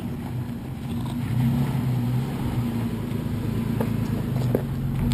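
Toyota 4Runner SUV engine running steadily at crawling speed on a rocky dirt trail, a low even hum. A few short sharp clicks come near the end.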